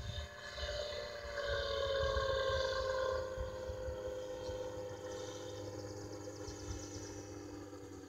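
Engine of a small rotorcraft flying overhead: a steady drone that slowly sinks in pitch, loudest about two to three seconds in and then gradually fading. Wind rumbles on the microphone.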